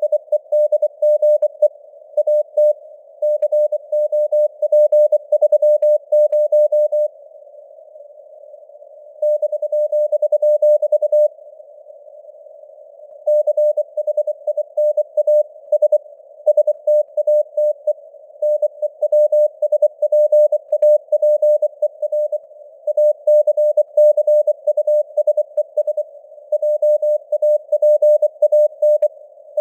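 Morse code (CW) sent at 24 words per minute as a tone of about 600 Hz keyed in quick dots and dashes, over a hiss of simulated radio noise in a narrow band around the tone. The sending pauses twice for about two seconds, about seven and eleven seconds in, leaving only the noise.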